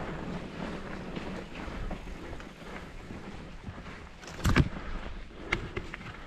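Mountain bike riding a dirt singletrack: steady rumble of the tyres on the trail with the bike rattling over small bumps, a sharp loud knock about four and a half seconds in, and two smaller knocks a second later as it jolts over the ground.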